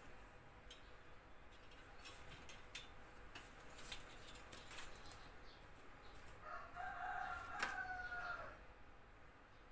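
A rooster crows once past the middle, a single call of about two seconds that dips in pitch at its end. Faint scattered clicks and taps sound around it.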